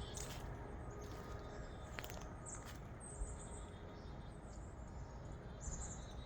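Faint outdoor ambience: thin, high bird chirps now and then over a low, steady rumble.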